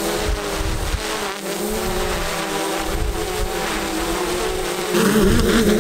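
GoPro Karma quadcopter hovering low, its propellers buzzing with a wavering pitch as the motors fight strong gusty wind, with wind rumble on the microphone. The buzz grows louder about five seconds in.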